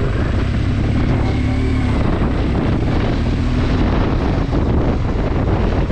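BMW R1200GS Adventure motorcycle's boxer-twin engine running steadily while riding, a constant low rumble with some wind noise on the microphone.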